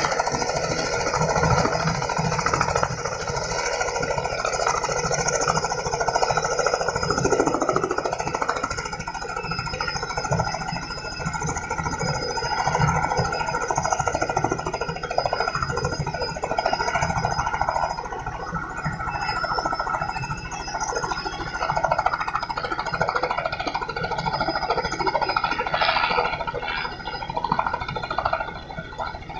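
Robinson R44 helicopter hovering just above the ground: steady rotor chop over the running six-cylinder piston engine and tail rotor.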